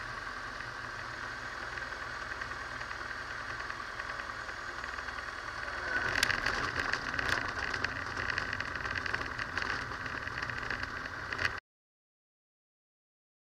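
Robin DR400 light aircraft's piston engine droning steadily, heard inside the cockpit as it comes in to land on a grass runway. From about six seconds in it grows louder, with knocks and rattling as the wheels touch down and roll on the grass. The sound cuts to silence about two seconds before the end.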